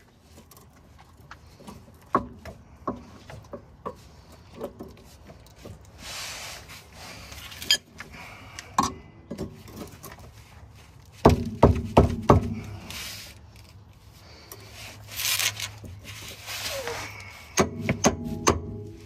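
Hand tools working on the steering linkage under a 1995 Mercedes-Benz E320: scattered metal clicks and knocks mixed with rustling, a quick run of loud knocks about eleven seconds in, and a fast series of hammer strikes near the end.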